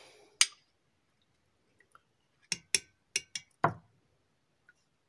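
A metal spoon clinking against a stainless steel mixer bowl: one sharp clink just after the start, then five quick taps about two and a half to four seconds in, the last a duller knock.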